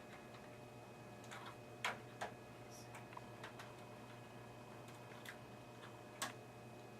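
Scattered small clicks and taps as a RAM module is pressed into its motherboard slot and its stiff locking clips are worked, which will not latch. The clicks are loudest about two seconds in and again near the end, over a steady low hum.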